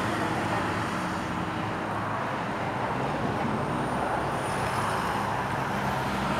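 Steady road traffic noise, motor vehicles running on a nearby road.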